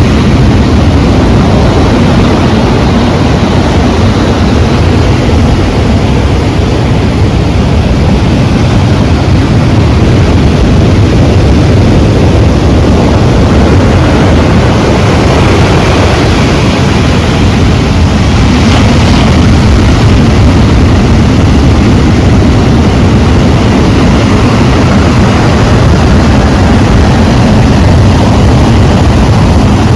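Sea waves breaking and washing in a loud, steady rush, heaviest in the low rumble, with a little more hiss about halfway through.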